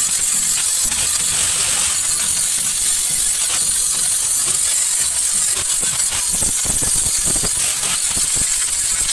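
Stick arc welding on stainless steel: the electrode's arc crackling and sizzling steadily without a break.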